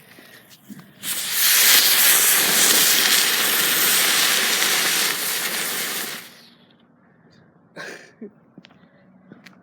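A ground bloom flower firework burning with a loud, steady hiss of spraying sparks for about five seconds, starting abruptly and dying out.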